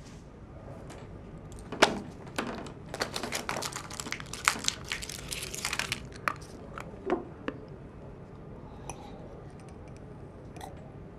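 Faint scattered clicks and crackles, densest a couple of seconds in and thinning out after the middle, over quiet room tone.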